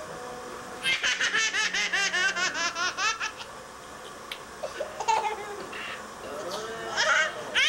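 Baby laughing while being tickled on the belly: a quick run of high-pitched giggles about a second in, lasting about two seconds, then more laughter near the end.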